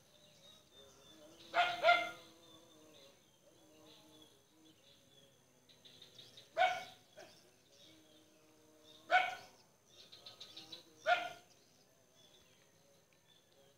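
A dog barking about five times: a quick double bark, then single barks every two to three seconds.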